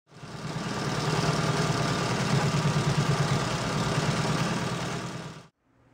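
Industrial sewing machine running steadily as it stitches binding tape onto a bag panel; it fades in at the start and stops about five and a half seconds in.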